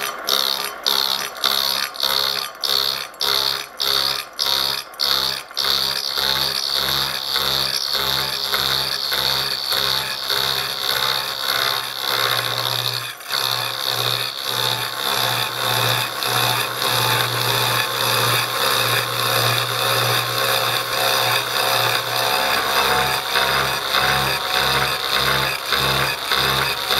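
Milling machine with a toothed disc slotting cutter cutting a slot into a small metal part, with a steady high whine from the cut over the motor's hum. For the first six seconds the cut comes and goes about one and a half times a second, then it settles into a continuous cut.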